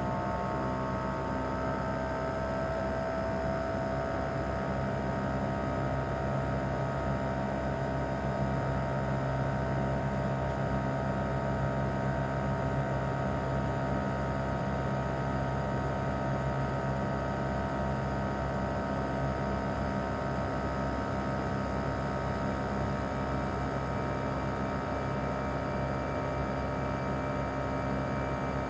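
Outdoor unit of a Mitsubishi Heavy Industries SRC2221T inverter air conditioner running in cooling mode. Its single-rotary compressor and fan give a steady hum with several inverter tones on top. The tones shift slightly in pitch at the start and then hold steady, and a faint higher tone comes in near the end.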